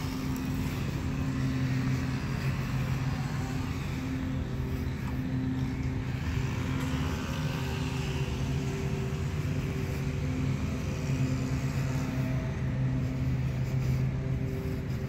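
Lawnmower engine running steadily at an even speed, a low hum that holds its pitch.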